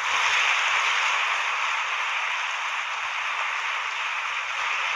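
Applause from a large audience: dense, steady clapping that starts right after a pause in the speech and eases slightly near the end.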